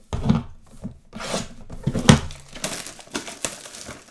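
Trading-card boxes and packs being handled on a table: several knocks of cardboard set down, with crinkling and rustling of wrappers and cards between them, loudest about two seconds in.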